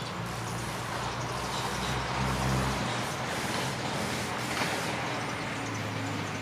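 Steady rumble and hiss of a motor vehicle engine running, with a low rumble that swells about two seconds in and eases a second later.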